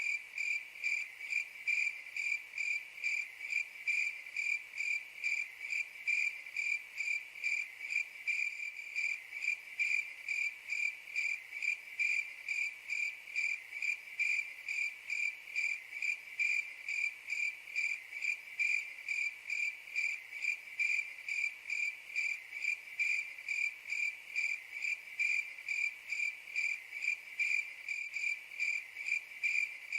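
Crickets chirping in a steady, even rhythm of about two chirps a second, each chirp a high, narrow-pitched trill.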